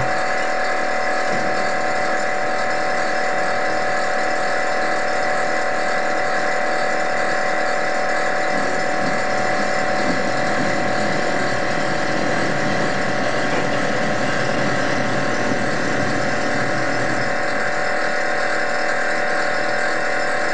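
A small motor-driven machine running steadily, a constant hum with several fixed pitches that does not change speed.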